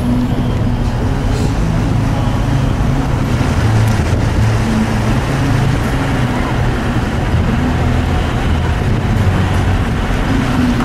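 Car engine running with steady road noise, heard from the moving vehicle as it drives along a mountain road: a continuous low hum under a constant rush.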